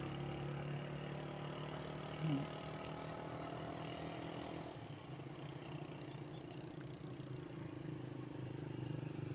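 Motorcycle engine idling steadily while the bike stands still.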